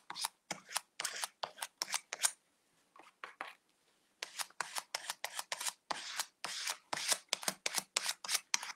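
A paint spreader scraping green paint through a mesh stencil in short, quick strokes, about three a second, with a pause of about two seconds near a third of the way in.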